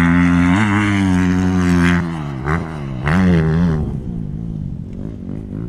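Motocross dirt bike engine revving under hard throttle, its pitch rising and falling as the rider accelerates and backs off. It is loudest for the first two seconds, with a second burst of throttle about three seconds in, then eases off.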